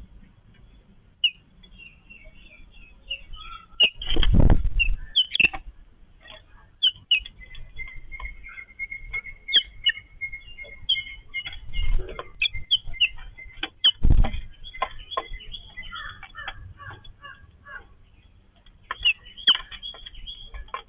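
A flock of yellow-billed babblers chattering, with many short, high, squeaky calls overlapping throughout. Three loud low thuds break in, the first about four seconds in lasting about a second, then two shorter ones later.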